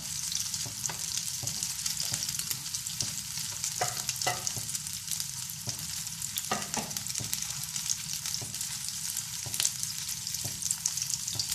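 A beef-mince chapli kabab frying in shallow oil in a wide black pan: a steady sizzle with frequent small crackles and a few louder pops, the patty cooking through over a low flame.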